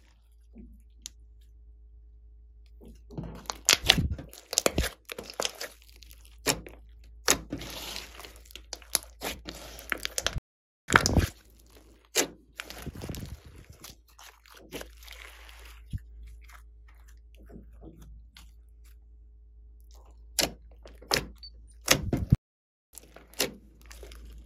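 Hands squeezing, stretching and kneading a large batch of sticky slime mixed with floam beads: wet crackling and squishing with many sharp pops and clicks. It is busiest for the first half, then goes quieter, with a few loud pops near the end.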